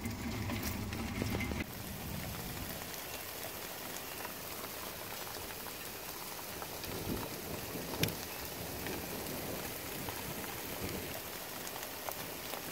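Heavy rain falling steadily, a dense even hiss. A low rumble underneath stops suddenly about two seconds in, and there is one sharp tick near the middle.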